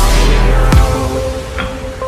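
Electronic background music with heavy bass; a deep hit drops in pitch about three-quarters of a second in.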